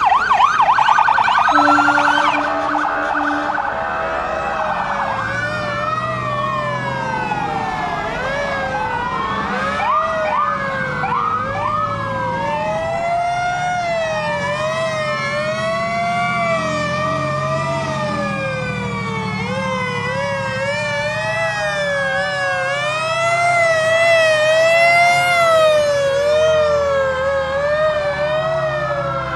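Several fire truck sirens sounding at once as the trucks pass: overlapping wails that sweep slowly up and down, mixed with faster warbling sirens, over the low rumble of truck engines. It is loudest in the first couple of seconds and again a little before the end.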